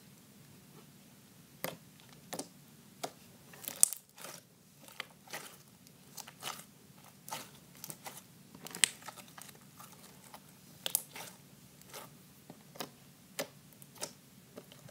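Mermaid slime being kneaded and poked by hand, giving quiet, irregular sticky clicks and small pops as it is pressed and pulled.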